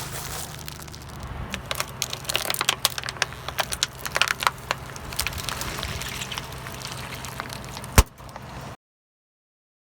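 Crunchy objects cracking and snapping under a car's slowly rolling tyre, a rapid, irregular run of cracks over a low steady engine hum. One loud sharp crack comes about eight seconds in, then the sound cuts out completely.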